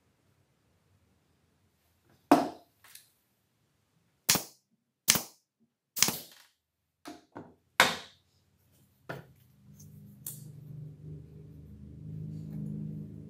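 Pneumatic nail gun firing into pine boards: a string of sharp shots, about five loud and several softer, spread over some eight seconds. A low steady hum begins about nine seconds in.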